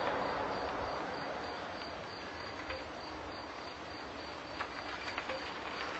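Crickets chirping in a high, even, rapid pulse over a faint outdoor hiss, with a few light ticks near the end.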